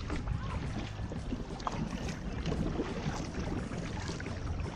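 Kayak paddle dipping and splashing in water, with many small splashes over a steady low rumble.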